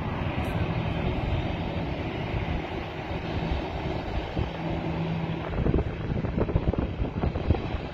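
Taxiing airliner's jet engines running, a steady hum with a hiss, mixed with wind buffeting the microphone, the gusts heavier in the second half.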